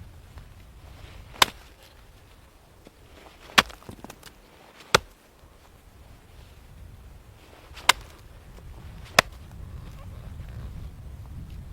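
Wood being chopped: five sharp, separate blows at uneven intervals, over a low rumble of wind that grows toward the end.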